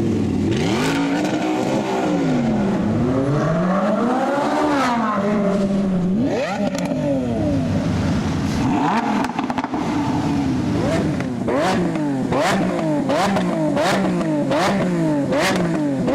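Supercar engine being revved while stationary: slow swells of the revs up and down, then in the second half quick repeated throttle blips, about three every two seconds, each followed by a sharp crack from the exhaust.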